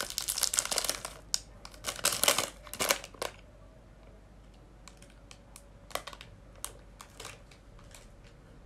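Plastic Twix candy-bar wrapper crinkling as it is pulled open and peeled back by hand: a dense run of sharp crackles for about three seconds, then a few scattered faint crackles.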